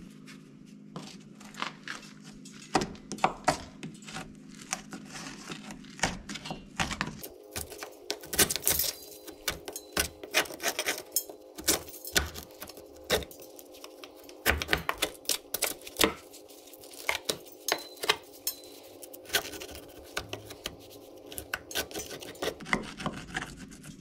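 Hand scraper working at rust on a car body: irregular sharp scrapes and clicks, sparse for the first several seconds, then coming several a second.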